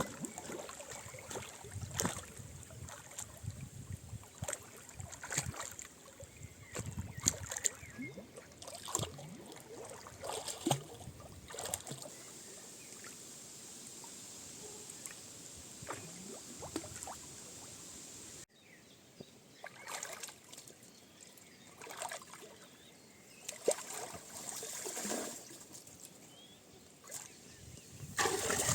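Light water splashing and sloshing, with scattered small knocks and splashes; the sound changes abruptly about two-thirds of the way through.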